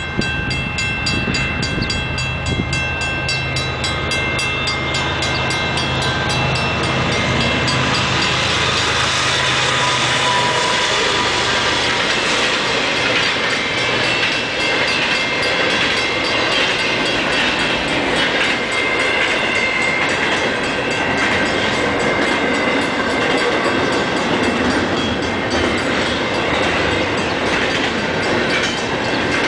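CN freight train passing close by. A deep diesel locomotive rumble runs for about the first ten seconds, then a long string of double-stack container cars goes by with steady rolling wheel noise and clickety-clack. A regular high ringing, fitting a level-crossing bell, sounds over the first several seconds.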